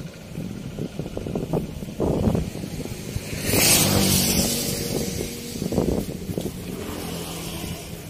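A motor vehicle engine running, with a loud rushing swell about three and a half seconds in.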